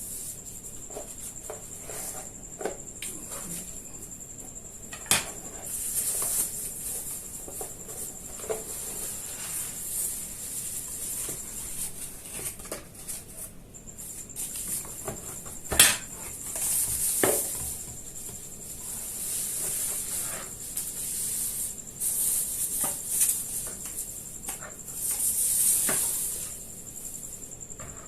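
Packaging rustling and handling knocks while a gaming keyboard and its accessories are unpacked, with a sharp knock about 16 seconds in as the loudest sound. A faint steady high-pitched whine runs underneath.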